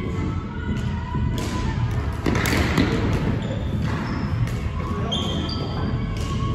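Ice hockey play around the net: skate blades scraping the ice in several sudden hissing bursts, with knocks of sticks and puck and players' voices over a steady rink rumble.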